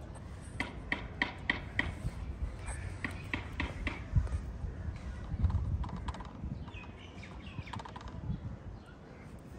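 A quick run of sharp taps, about three a second, followed by scattered knocks over a steady low outdoor background hum.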